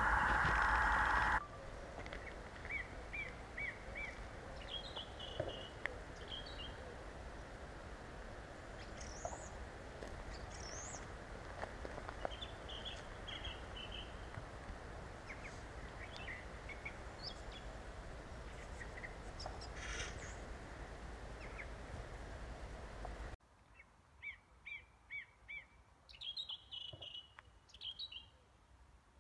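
Small songbirds chirping in short, high phrases over a steady outdoor hiss. It opens with a brief, louder rushing noise, and near the end the background hiss drops away suddenly, leaving quick runs of chirps, about four a second, standing out clearly.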